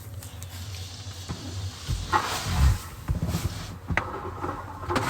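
Handling noise from a plastic smoke alarm being worked by hand: scattered clicks and a brief rustle about two seconds in, over a steady low hum.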